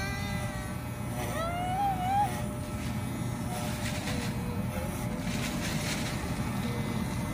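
Corded electric dog clippers buzzing steadily as they cut through a shaggy dog's coat. About one and a half seconds in, a brief wavering sound rising in pitch rises above the buzz.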